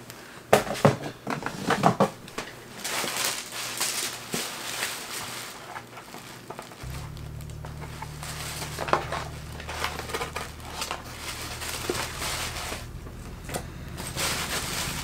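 Tissue paper crinkling and rustling as packaging is handled, with a few sharp knocks and handling noises in the first two seconds. A low steady hum comes in about seven seconds in.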